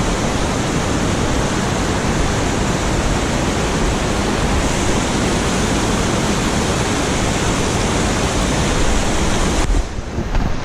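Small waterfall rushing, a loud, steady noise of falling water that breaks off abruptly near the end.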